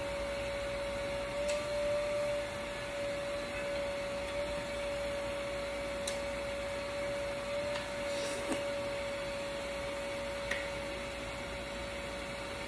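A steady, even machine hum from outside coming in through open windows, with a few faint clicks and taps.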